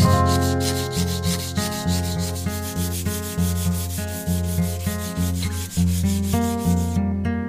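Sandpaper rubbed by hand along a clamped steel knife blank in quick, even back-and-forth strokes, hand-finishing the blade's flat. The sanding stops about seven seconds in. Guitar background music plays throughout.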